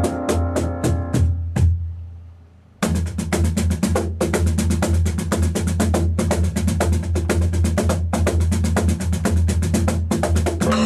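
Instrumental duo music, drums with piano: a few hits that die away into a brief lull about two seconds in, then fast, driving drumming kicks back in just under three seconds in and carries on.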